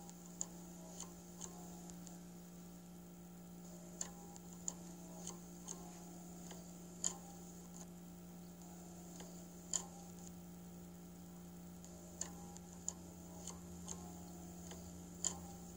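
Faint, irregularly spaced sharp clicks, roughly one or two a second, over a steady low electrical-sounding hum.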